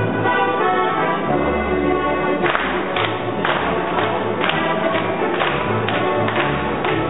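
Live folk-dance music played on an accordion, with dancers clapping their hands together in time, about two claps a second, starting about two and a half seconds in.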